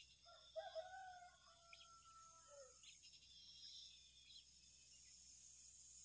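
Faint rooster crowing once, about two and a half seconds long, the call dropping in pitch at the end, over a steady high-pitched background hum.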